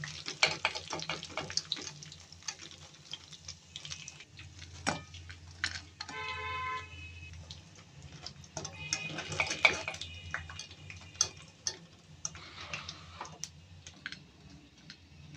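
Chicken pakoras deep-frying in hot oil in an aluminium karahi: a steady sizzle full of small crackling pops. A wire skimmer scrapes and clinks against the pan as the pieces are stirred and lifted out.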